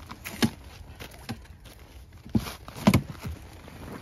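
A handful of short, irregular knocks and thumps of gear being handled, the loudest about three seconds in.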